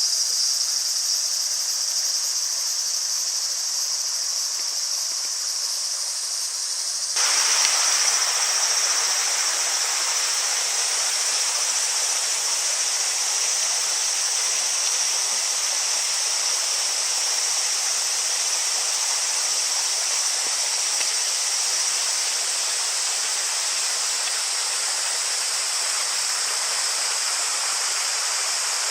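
Steady high-pitched chorus of insects. About seven seconds in, the even rushing of a flowing stream cuts in suddenly and continues under the insects.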